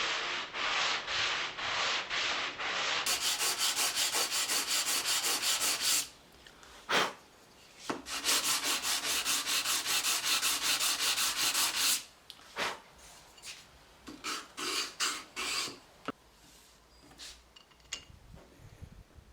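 Hand sanding on wood: sandpaper rubbed back and forth in quick, even strokes, in two runs of about four to five strokes a second. Near the end it gives way to a few lighter, shorter rubs and faint ticks.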